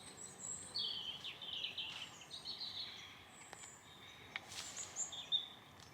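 Small songbirds chirping and warbling in short, high phrases, with a few faint clicks.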